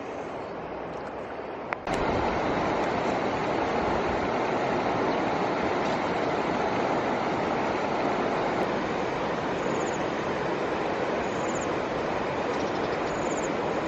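Steady, loud rushing noise that cuts in abruptly with a click about two seconds in, over a quieter hiss before it. A few faint, short, high chirps near the end.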